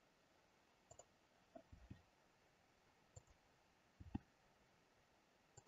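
Faint clicks of a computer mouse and keyboard, about half a dozen spread over several seconds, some in quick pairs, over near silence.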